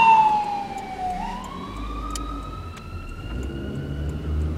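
An emergency vehicle's siren in a slow wail: the tone falls to its lowest point about a second in, then climbs slowly again and fades toward the end. It is loudest at the start.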